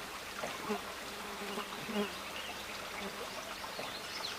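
A fly buzzing steadily over quiet outdoor background noise.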